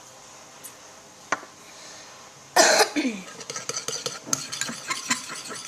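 Slime mixture being stirred in a bowl with a utensil: a fast run of clicks and scrapes that starts a little past halfway, just after a short cough-like vocal sound.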